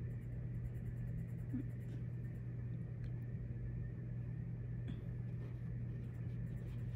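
Felt-tip marker writing: faint, short scratchy strokes, over a steady low hum.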